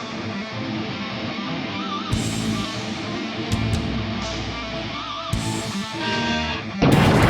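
Background rock music led by electric guitar, with a sudden loud crashing burst near the end.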